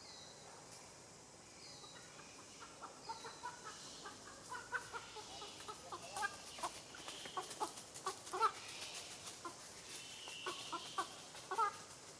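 Short clucking animal calls in quick, irregular runs, starting about two seconds in. Faint high chirps repeat at the start.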